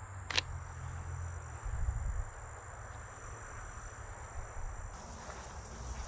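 Insects, crickets by their sound, keep up a steady high-pitched drone. A single sharp click comes just after the start, likely the camera's shutter, over a low rumble of handling and movement. A brighter hiss joins in the highs about five seconds in.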